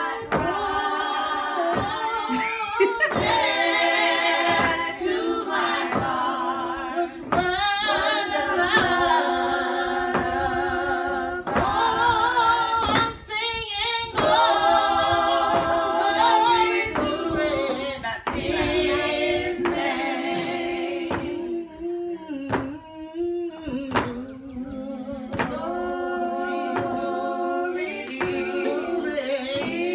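Several voices singing a cappella in harmony, in phrases of held notes with vibrato and short breaks between them.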